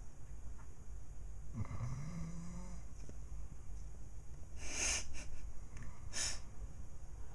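A man snoring in his sleep: one snore about a second and a half in, its pitch rising and then holding, followed by two short hissing breaths at about five and six seconds.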